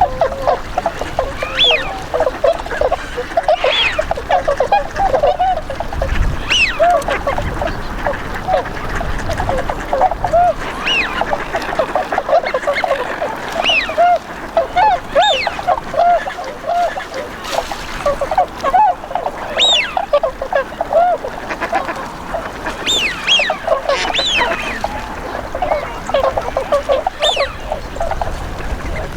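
A flock of tundra swans (Bewick's swans) calling without a break: many short, overlapping honking calls, with louder, higher calls standing out every few seconds.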